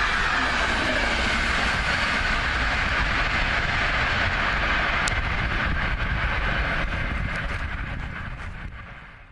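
Locomotive-hauled passenger train of coaches passing at speed: rumble and rail noise from the wheels, with a slight drop in pitch as the coaches go by. The noise holds for several seconds, then fades away over the last two seconds as the train moves off.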